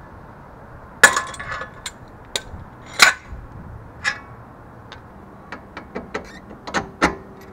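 Hand tools and steel suspension parts clinking and knocking together during work on a car's front suspension. A few sharp metallic knocks with a brief ring come first, then a quicker run of lighter clicks near the end.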